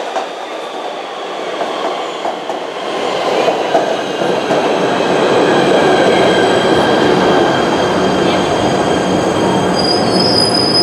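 A PATH rapid-transit train rolling along the station platform: the cars' wheels and running gear rumble and squeal with several steady high tones, getting louder over the first five or six seconds and then holding. A sharper, high squeal rises near the end.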